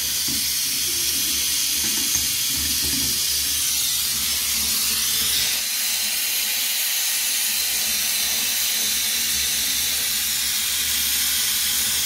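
Small oxy-fuel welding torch burning with a steady hiss while it welds a drill chuck onto a motor shaft.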